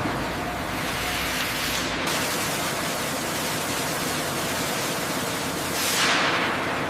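Steady rushing hiss of noise across all pitches. The deepest rumble drops away about two seconds in, and a louder swell of hiss comes near the end.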